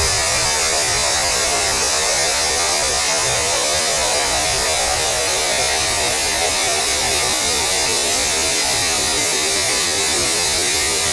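Steady hiss of static, a television with no signal, with a rough buzzing undertone.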